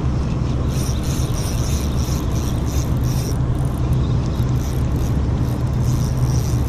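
Steady low engine drone, with faint high pulses repeating above it.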